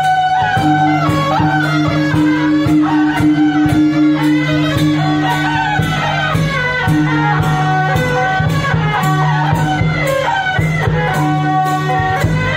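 Taiwanese temple-procession band playing: suona reed horns carry a held, wavering melody over a low sustained tone, with gongs and cymbals striking a steady beat of about two strokes a second.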